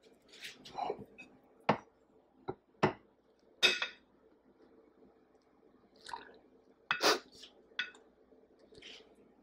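Icing spatula clinking and scraping against a metal mixing bowl while scooping up buttercream frosting: several sharp clinks in two clusters, with softer scrapes between them.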